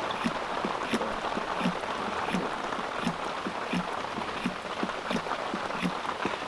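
Staresso manual espresso maker being hand-pumped in steady strokes, about two to three a second, keeping up pressure while the shot extracts through the non-pressurized portafilter. A steady hiss runs underneath.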